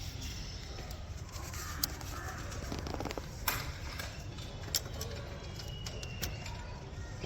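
A few sharp, isolated metallic clicks of hand tools and hardware being worked on a motorcycle heel shifter's bolts and nuts, spaced a second or more apart, over a steady low rumble.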